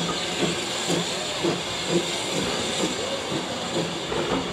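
Saddle-tank steam locomotive pulling a train away, its exhaust beating about twice a second over a steady steam hiss.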